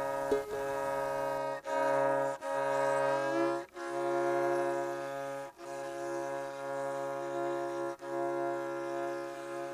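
Slow ambient instrumental music of long held string notes over a low drone, the notes changing every one to two and a half seconds, one sliding up in pitch shortly before the fourth second.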